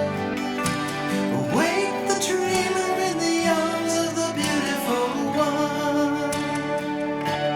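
Music: a slow piece with plucked guitar and long held notes, with a steep upward slide in pitch about one and a half seconds in.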